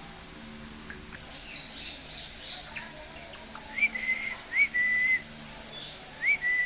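Baby African grey parrot whistling: three whistled notes in the second half, each a quick upward flick that levels off into a held tone, with a few faint squeaky chirps before them.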